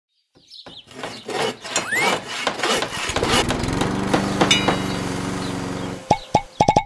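A quick run of sound effects: scattered clicks and knocks with a short rising whistle about two seconds in, then a steady motor-like buzz for about three seconds, ending in a string of short pitched pops near the end.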